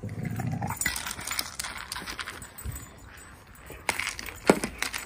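A border collie nosing and pawing a red rubber treat-dispensing toy across artificial grass, treats clinking and rattling inside it, with irregular knocks of the toy, the loudest about four and a half seconds in.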